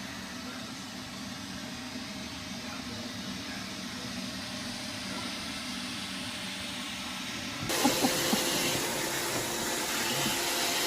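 Roomba robot vacuum running, a steady whirring hum with hiss. About three-quarters of the way through the sound cuts to a louder, brighter whirr with a few short knocks.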